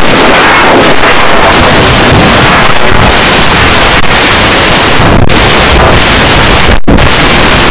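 Extremely loud, heavily distorted and clipped noise pinned at full level, an over-driven edited soundtrack with no clear tones or words in it. It cuts out for an instant about seven seconds in.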